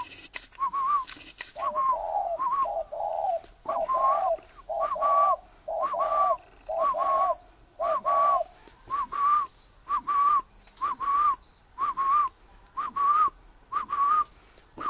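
Spotted dove calling: a long run of short repeated notes, about two a second, joined by lower paired coos from about 2 to 8 seconds in. A thin steady high tone runs underneath.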